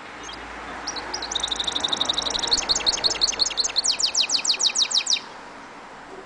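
Caged mule, a canary-finch hybrid, singing: a run of rapid, evenly repeated high notes that grows louder, breaks into fast falling trills, and stops abruptly about five seconds in.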